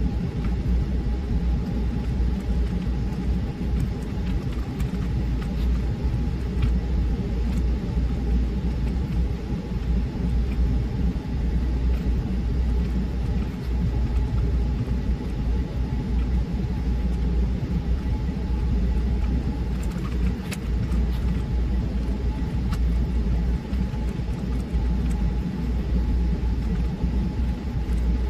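Steady low rumble with a faint constant hum above it and a few scattered faint clicks.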